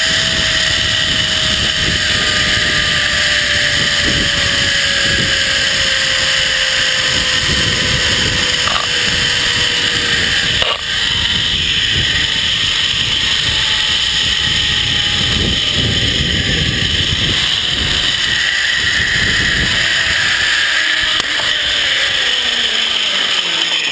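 Zipline trolley pulleys running fast along the steel cable, with wind rushing over the microphone: a loud steady whir carrying a thin whine that slowly drops in pitch over the first ten seconds or so as the trolley's speed changes.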